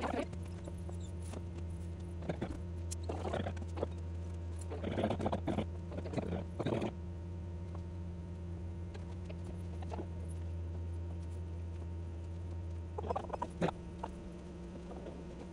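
Hands scrunching a cotton t-shirt and handling twine against a wooden tabletop: scattered rustling and scraping, in bunches about three seconds in, around five to seven seconds, and again near the end. Under it a steady low hum runs until about thirteen seconds in, then stops.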